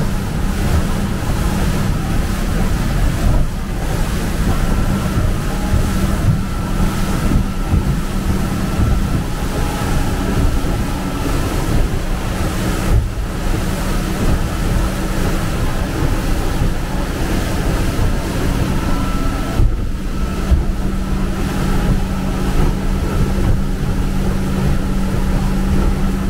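Motorboat running at speed: a steady engine hum under the rush of the churning wake and water against the hull, with wind buffeting the microphone.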